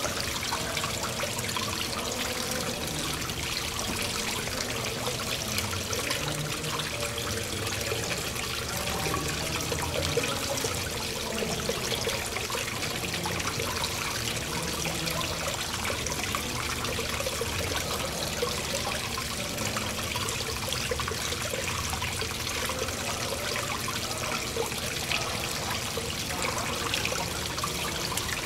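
Water trickling and splashing steadily from a floating marble sphere fountain, welling out from under the 12-inch ball and spilling over a stone base into the basin.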